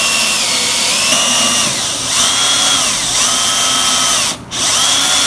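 Cordless drill driving a hole saw through a wooden podium top, run slowly. The motor whine dips and rises in pitch several times as the speed changes, stops briefly about four seconds in, then starts again.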